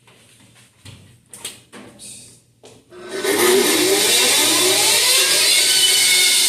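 A few short knocks and clicks, then about three seconds in the Rikon 14-inch bandsaw is switched on and its motor spins up with a rising whine and runs steadily: a quick test run of a freshly fitted blade.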